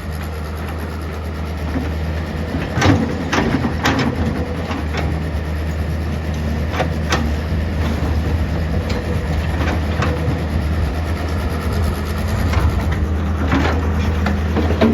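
An engine running with a steady low hum, with scattered knocks and clanks over it.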